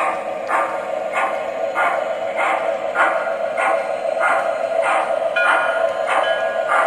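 Model steam-locomotive chuffing from the sound system of an MTH RailKing 0-8-0 switcher in O gauge, slow and steady at under two chuffs a second. Short high steady tones join in near the end.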